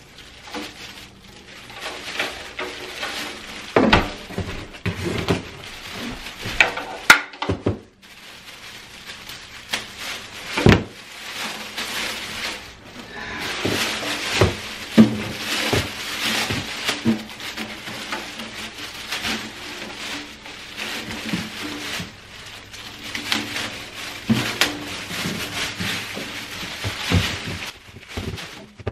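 Bubble wrap and a plastic bag crinkling and rustling as a drum is unwrapped, with a few louder thumps from handling.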